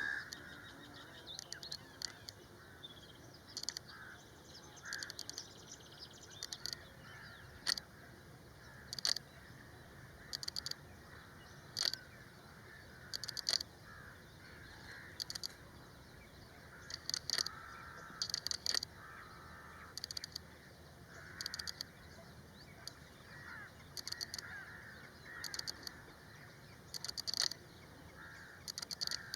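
Wild birds calling: short, sharp calls repeat about once a second, over softer chirping and twittering.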